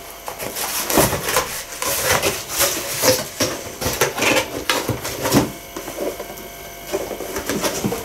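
Cardboard box being handled: rustling and scraping of cardboard with a string of irregular clicks and knocks.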